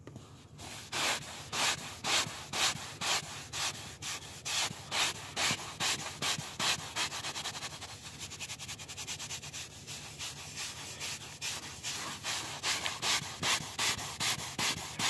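Handheld leather-and-vinyl cleaning brush scrubbing a wet car seat, its bristles rasping against the upholstery in quick back-and-forth strokes, about two to three a second.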